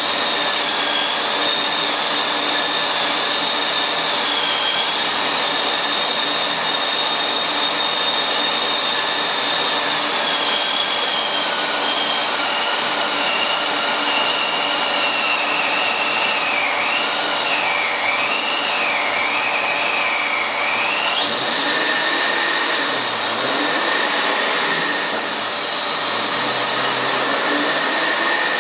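Ford Mustang LX hatchback running on a chassis dynamometer: a steady, loud mechanical rush with a high whine that drifts in pitch, wavers up and down midway and rises in short glides near the end.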